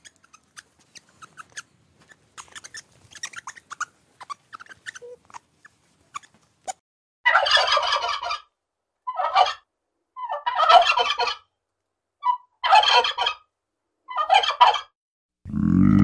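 Domestic turkey toms gobbling, about six gobbles in quick succession through the second half. Before them come a few seconds of faint scattered ticks and chirps.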